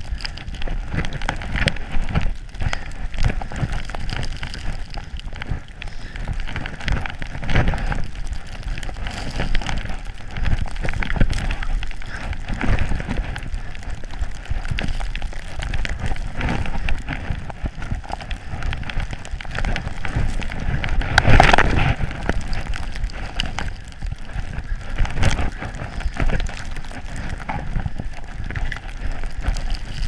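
Skis running and scraping through snow in a series of turns, with wind buffeting the action camera's microphone; the noise swells and falls irregularly, loudest a little past two-thirds of the way in.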